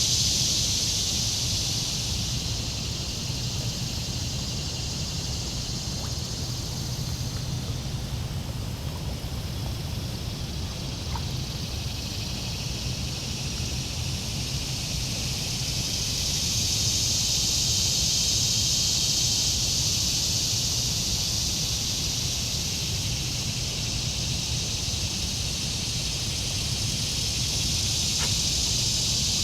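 Outdoor insect chorus: a steady high buzz that fades and then swells again about halfway through, over a low rumble.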